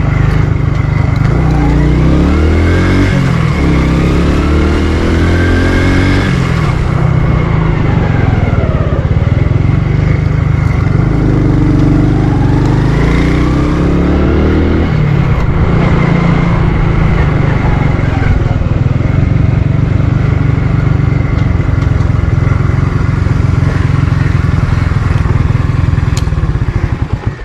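Motorcycle engine running close to the camera. Its note rises and falls in pitch twice as the rider speeds up and slows through the lanes, then runs steadily as the bike rolls to a stop.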